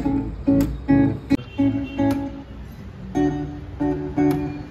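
Acoustic guitar run through a Boss OC-5 octave pedal into an amplifier, playing a phrase of plucked notes and chords, with the pedal adding a lower octave beneath them.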